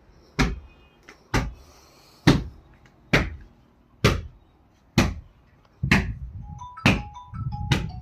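Background music: a heavy thudding beat about once a second, with a melody of held notes joining about six and a half seconds in.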